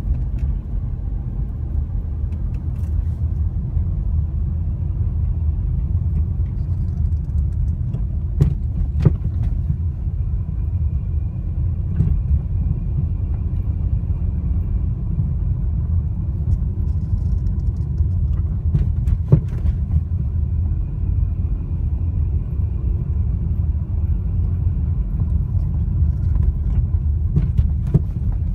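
Volkswagen Touareg on the move with a steady low rumble of road noise. Now and then a sharp knock comes from the suspension, a few times over the stretch and twice in quick succession at times. The knock is the sign of a worn strut top mount bearing.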